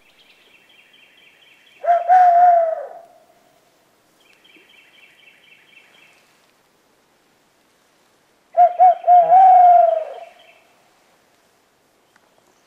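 Hooting in the manner of a barred owl, used as a locator call to make a gobbler answer. There are two loud phrases: one about two seconds in, and one past the middle that goes as three short hoots and then a long, falling hoot. A faint, fast, high bird trill sounds before and between them.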